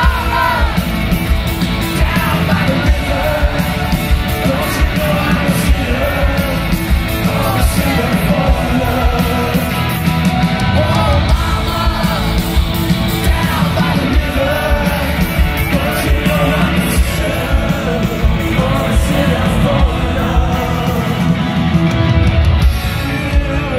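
Live rock band: male vocals sung and shouted over electric guitars and a steady drum beat, heard loud through a phone in the crowd of a large hall.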